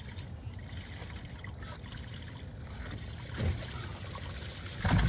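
Water trickling and lapping, with a dull thump about three and a half seconds in and a louder thump near the end.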